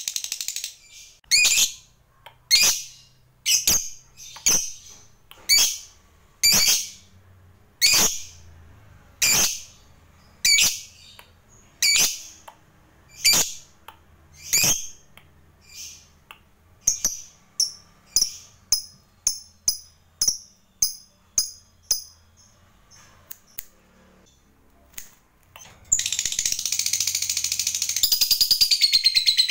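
Fischer's lovebird calling: sharp single high chirps about every second and a half, quickening to about two a second, then a short pause. About four seconds from the end it breaks into a long, fast, unbroken chattering trill, the 'ngekek panjang' that lovebird keepers prize.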